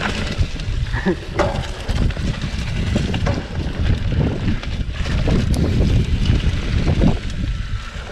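Mountain bike riding fast down a dirt trail: wind rushing over the microphone, with tyres on the ground and the bike rattling and knocking over bumps. The noise dies down near the end as the bike slows.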